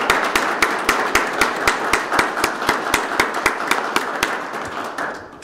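A small audience applauding, with one person's claps loud and close over the softer clapping of the rest, about four a second. The applause dies away about five seconds in.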